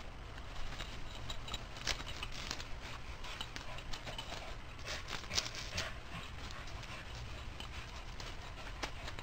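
A Border Collie cross's paws landing, scrabbling and padding on grass and against a tree trunk as it jumps and runs, heard as scattered irregular taps and thumps over a low steady rumble.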